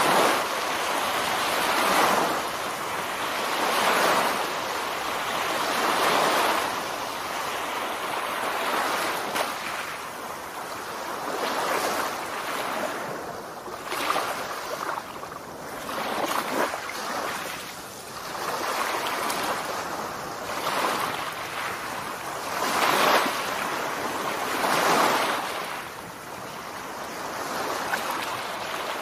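Small surf waves washing onto a flat sandy beach, the rush of water swelling and fading every couple of seconds.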